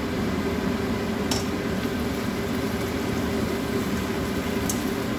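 Vegetables and strips of meat frying in a pan, over a steady hum, with two brief clicks, one about a second in and one near the end.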